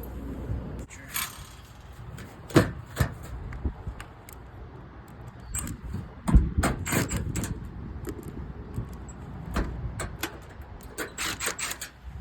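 Clicks, knocks and metallic rattles as the access panels and parts of a rooftop HVAC package unit are handled, over a low steady rumble. The strongest knocks come about two and a half seconds and six seconds in, with a quick run of clicks near the end.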